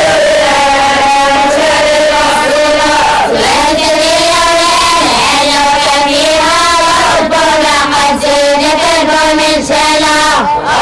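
A group of students chanting a memorized Arabic text (matn) in unison, in the melodic style of traditional Moroccan collective recitation. The notes are held and drawn out, with short breaks between phrases.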